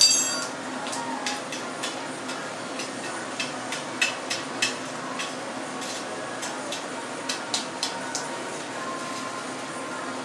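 Blacksmith's metal tools clanking at a coal forge: one loud ringing clank right at the start, then a string of scattered light clanks and knocks as the fire is worked, over a steady low hum.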